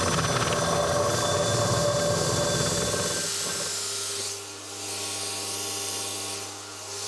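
Milling machine's gear cutter cutting a tooth into a gear blank on a dividing head: a loud, rough cutting noise for about three and a half seconds. It then drops to the steadier hum of the spindle running with the cutter clear of the work.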